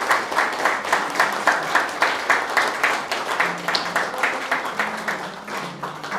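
Guests applauding, with one pair of hands clapping close by at about three to four claps a second. The applause fades off near the end.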